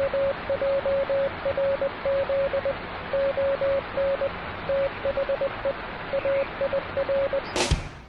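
Morse code (CW) tone at one steady pitch, keyed in dots and dashes over the hiss and static of an HF ham radio. It cuts off near the end with a short swish.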